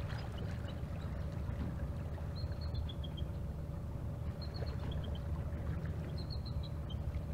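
Steady low drone of a fishing boat's engine with a constant hum over it. Four times, a short run of high chirping notes steps down in pitch.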